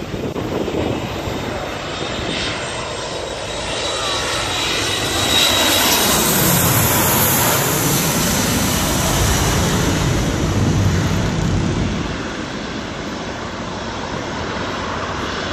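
A SkyJet BAe 146 four-engine turbofan airliner passes low overhead on landing approach. Its jet noise swells to a peak about a third of the way in, with a high whine and a falling pitch as it goes over, then fades away over the last few seconds.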